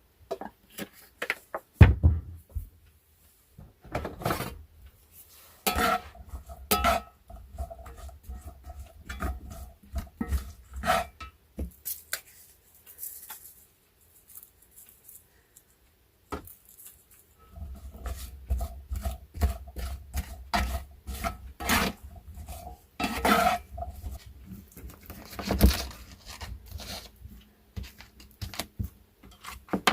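Metal utensils clinking, knocking and scraping against pots and pans, in a long series of short clatters with a quieter lull about halfway through.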